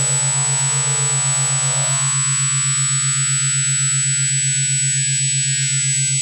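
Synthesized electronic sound: a low hum pulsing about six times a second under a dense, buzzy high tone whose lower edge climbs steadily, so the sound grows thinner and brighter.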